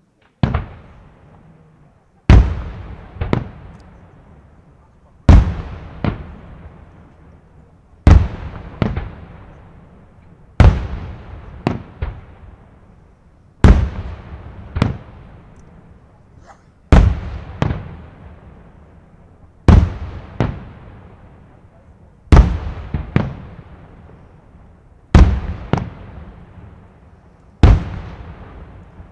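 Aerial firework shells bursting one after another, a loud bang about every two and a half to three seconds, most followed by a smaller second report about a second later, each echoing away.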